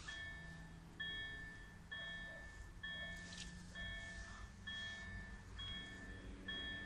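Railway level-crossing warning bell ringing a clear chime-like tone that strikes again about every second, each ding ringing on until the next. It signals that the crossing is active and a train is approaching.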